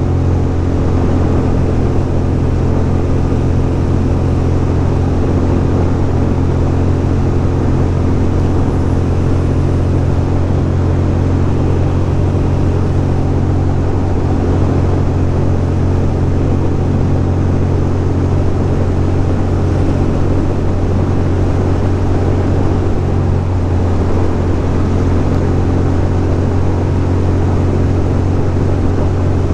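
2006 Ducati Monster 620's air-cooled L-twin engine running steadily at cruising speed, heard from the rider's seat with wind and road noise rushing past.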